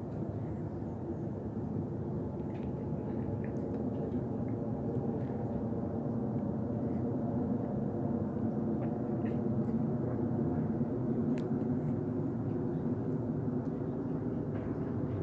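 Rumble of a Boeing 777 freighter's twin GE90 jet engines passing overhead on approach, swelling slowly to its loudest about ten seconds in.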